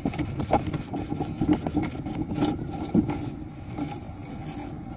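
Raw potato pressed and twisted onto the sharpened, slanted end of a PVC potato-cannon barrel, the edge cutting into the potato to size it for loading. A run of short scrapes and crunches that eases off after about three seconds.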